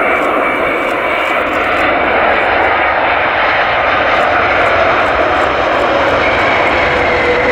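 Boeing 787-9 airliner's Rolls-Royce Trent 1000 turbofans running with a loud, steady rush of engine and air noise as it lands close by. A faint falling whine comes in near the end.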